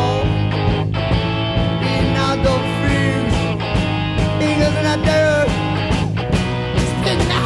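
Rock music with distorted electric guitar and drums, as a background track.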